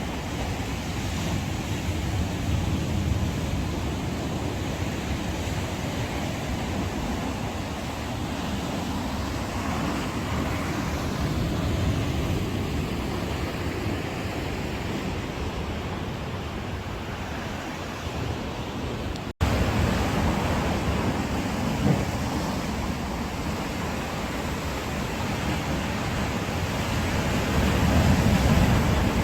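Sea waves breaking and washing against coastal rocks, a continuous surging rush with slow swells that rises to a stronger surge near the end. Some wind is on the microphone.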